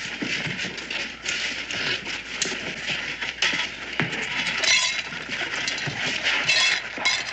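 Coins clinking and jingling as they are scattered and gathered up, many small metallic clicks over a crowd's steady murmur.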